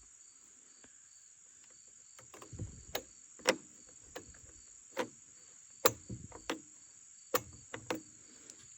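Crickets trilling steadily, with a run of sharp knocks and clunks, about seven of them, from about two and a half to eight seconds in.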